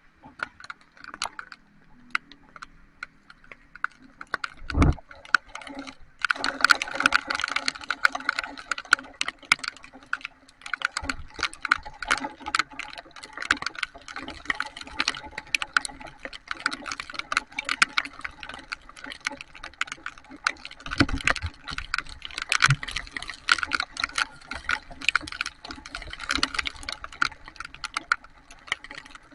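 Heavy rain: a dense, rapid patter of drops striking close to the microphone, growing much heavier about six seconds in. Two low thumps break through, one about five seconds in and one around twenty-one seconds.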